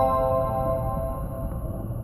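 Japanese train's onboard announcement chime, its last few bell-like notes held and slowly fading, over a low rumble.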